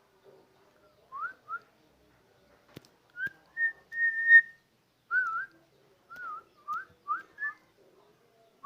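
A run of clear whistled notes: two short rising slurs, then a long held note about four seconds in, then several quick wavy and rising notes.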